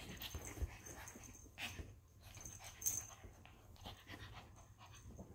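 Small dog panting quietly, with a few short rustles of the shawl and couch as it moves, the strongest about a second and a half and three seconds in.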